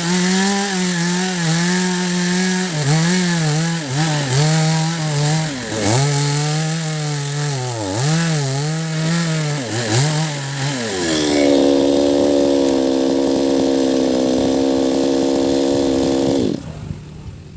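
Chainsaw cutting into the roots of a large rain tree (trembesi) stump, its engine pitch dipping again and again as it bogs in the wood. About eleven seconds in it rises to a steady higher pitch, then cuts off suddenly near the end.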